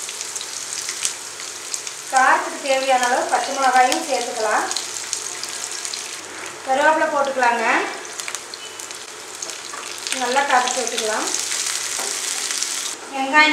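Sliced onions and green chillies sizzling in hot oil in a nonstick frying pan, stirred with a wooden spatula. A voice is heard over it in several short stretches.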